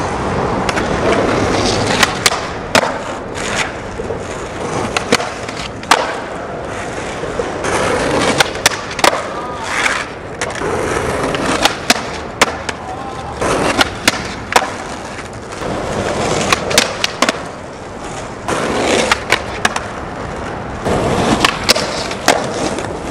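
Skateboard wheels rolling over concrete, a steady rumble broken many times by sharp clacks of the board's tail and deck hitting the ground.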